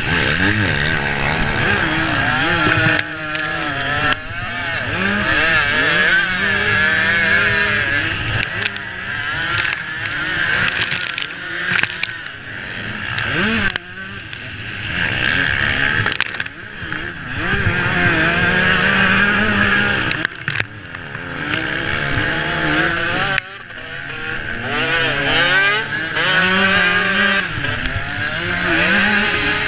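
Motocross bike engine heard on board, revving hard and shifting, its pitch climbing and falling again and again, with several brief sudden drops where the throttle is shut off.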